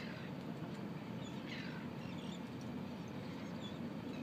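Steady low rush of wind and water over open harbour water. A few faint, high, squeaky chirps come and go over it.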